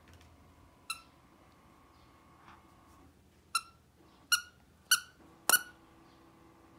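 A dog's squeaky plush toy squeaking five times as a toy poodle bites it: once about a second in, then four squeaks in quick succession, about two a second, the last one the loudest and longest.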